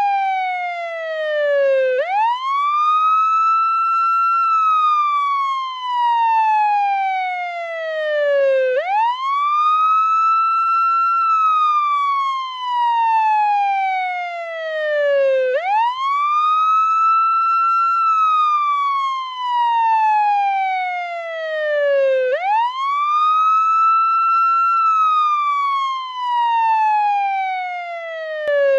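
Portuguese ambulance wail siren: the tone sweeps up quickly, holds briefly at the top, then falls slowly over about four seconds. The cycle repeats about every seven seconds.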